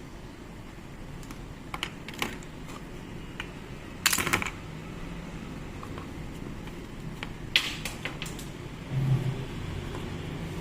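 Scattered light clicks of small hard parts being handled, with two short bursts of rapid rattling clicks, about four seconds and seven and a half seconds in.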